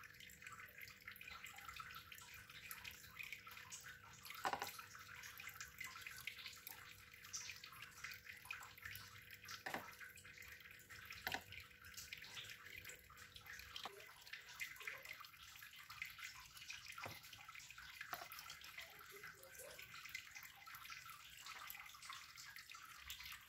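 Near silence, broken by a few soft clicks of a metal spoon against a plastic pudding mould and faint drips as runny milk pudding is drizzled in.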